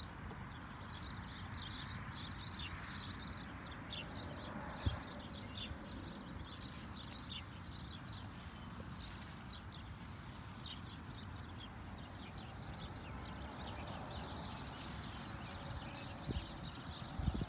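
Outdoor field ambience: faint high chirping scattered throughout over a steady low rumble of wind on the microphone, with a single soft knock about five seconds in and a couple of small ones near the end.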